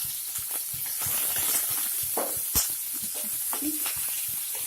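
Cumin, garlic and green chillies sizzling in hot mustard oil in a kadhai, with a steady hiss and a spatula stirring and clicking against the pan. One sharp clack comes about two and a half seconds in.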